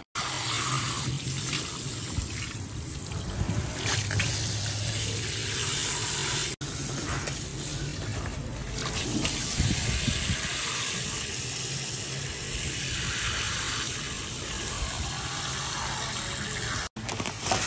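Water running steadily from a kitchen tap, with two brief, abrupt dropouts.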